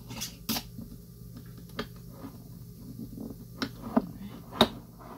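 Glass mason jars with metal screw lids being handled on a tabletop: a series of light clicks and knocks, about six, the sharpest near the end, over a steady low hum.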